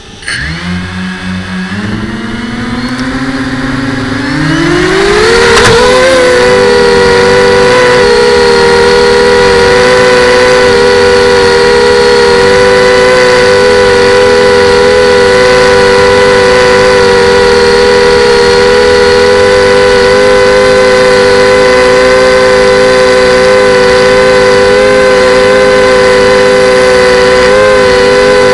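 FPV quadcopter's motors spinning up, their whine rising in pitch over about the first five seconds, then holding a steady, loud whine.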